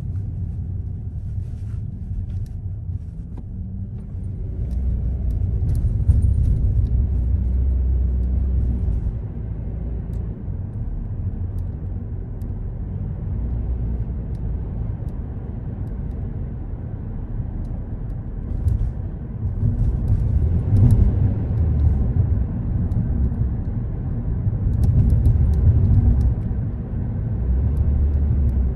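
Car driving on city streets: a steady low rumble of engine and road noise that swells and eases, with a few faint clicks.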